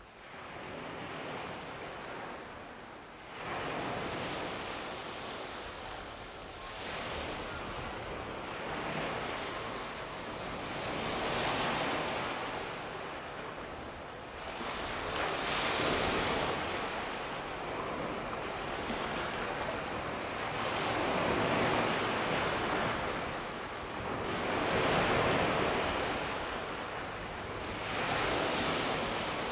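Sea surf: waves washing onto a shore, swelling and falling back every few seconds, fading in at the start.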